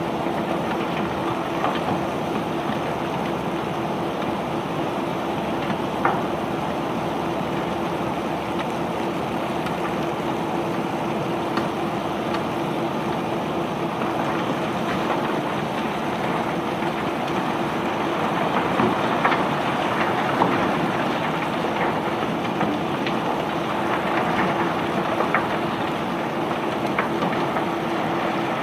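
Conveyor belt carrying rock, running with a steady rattling rumble and a constant hum, with occasional sharp clicks and knocks of stones.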